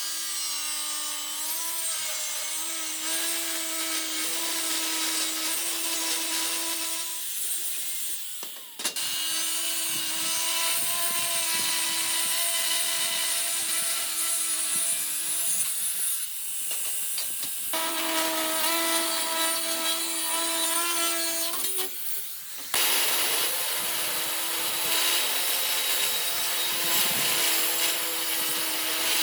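A power tool running with a steady motor hum while it scrapes and grinds against a workpiece, in several clips that cut in and out.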